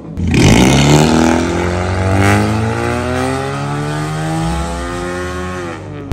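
Honda Civic with a straight-piped exhaust (resonator replaced by straight pipe, catalytic converter still in place) accelerating. The engine note comes in sharply just after the start, climbs, then slowly falls away.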